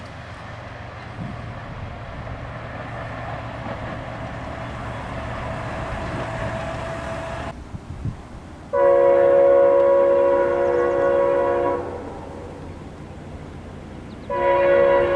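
Amtrak passenger train running past with a steady rumble that cuts off suddenly, then the locomotive's multi-chime air horn sounds a long chord of about three seconds and starts again near the end.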